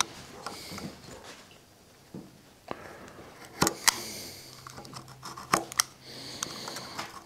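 Razor knife cutting through a sheet of Turcite B along a clamped steel strip: scattered small clicks, ticks and scrapes of the blade and tools against the strip and metal bench, with a few sharper clicks in the middle. A faint steady low hum sits underneath in the second half.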